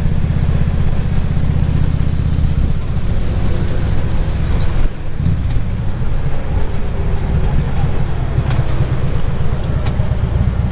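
Harley-Davidson touring motorcycle's V-twin engine running under way, with wind noise on the helmet microphone. The engine note changes about three seconds in and dips briefly around five seconds in.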